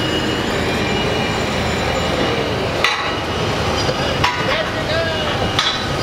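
Construction-site noise from heavy machinery, with a few sharp metallic knocks like hammering heard through the din.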